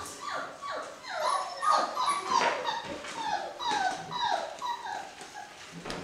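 Five-week-old Braque Français puppies whining: a string of short, high whines, each falling in pitch, about three a second, loudest in the first half.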